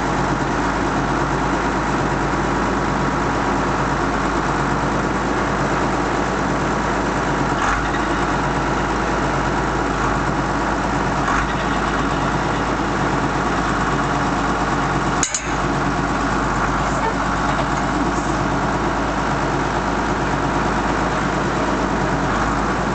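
Loader tractor's engine running at a steady idle, with one sharp click about fifteen seconds in.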